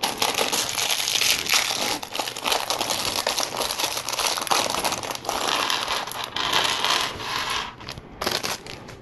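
Thin clear plastic LEGO parts bag crinkling in the hand as it is handled and emptied, with many small clicks running through it. It dies down in the last second or so.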